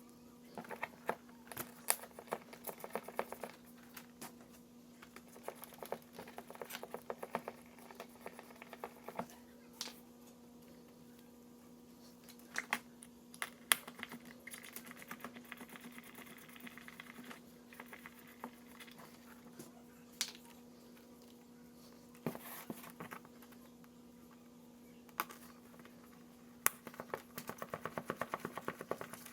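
Scattered light clicks and taps of small parts being handled, some in quick clusters, over a steady low hum.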